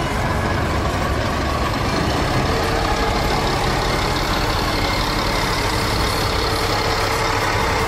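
Heavy diesel bus engine running steadily, a deep continuous drone with a faint steady tone above it.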